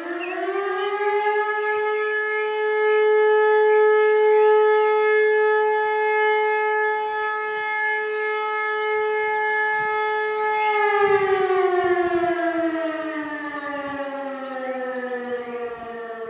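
Village alarm siren sounding the fire-brigade alarm: one tone with many overtones holds steady for about ten seconds, then slowly winds down in pitch.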